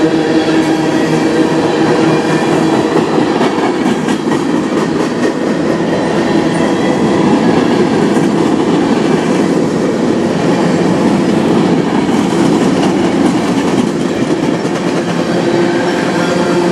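Freight train tank cars and covered hoppers rolling past close by: steady noise of steel wheels on the rails, with a few faint clicks about four seconds in.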